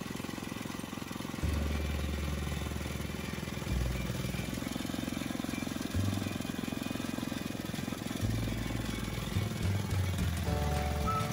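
Belt-driven sugarcane juice crusher running: its gears and rollers turn and crush cane stalks fed through them, with a low drone that comes and goes.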